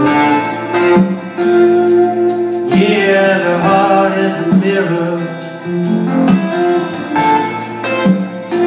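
Live band music: guitars playing over drums with steady cymbal hits, an instrumental passage between sung lines of the song.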